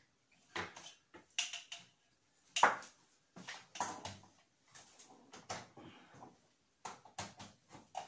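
Plastic clicks and knocks of hand-blender parts being handled and fitted together: the motor unit and lid of a chopper bowl being set and clicked into place on the bowl, which stands on a towel. One sharper knock comes about two and a half seconds in. The motor is not running.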